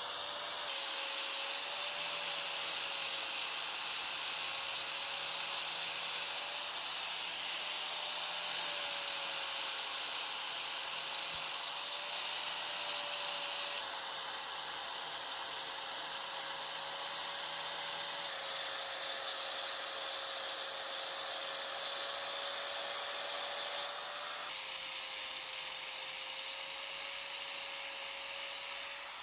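Small electric power tool running at a steady speed with a hissing, abrasive sound of metal being worked, its motor giving a steady, slightly wavering whine; the sound changes abruptly a few times.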